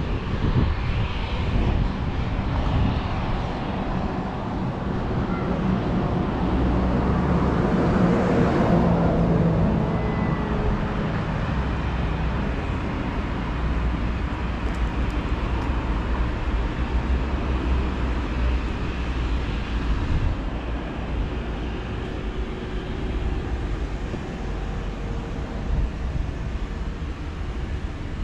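Wind buffeting the microphone, with an engine passing that swells to its loudest about eight seconds in and then fades.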